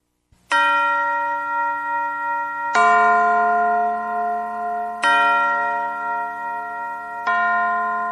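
Bell chimes struck four times, about every two and a quarter seconds, each a chord of several tones ringing on and fading slowly.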